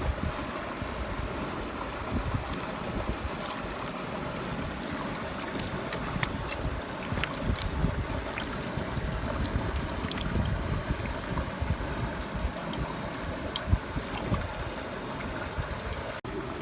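Rushing water of a mountain stream, with wind buffeting the microphone in low gusts and a few faint clicks.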